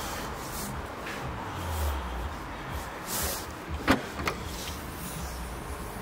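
A sharp click about four seconds in, then a softer one, over a steady hiss and low hum: the BMW 2 Series' boot lid being unlatched and lifted open.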